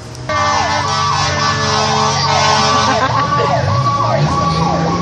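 Fire engine siren sounding as the truck arrives at the fire, its pitch sweeping down over and over about twice a second, over a steady low drone. It cuts in sharply just after the start.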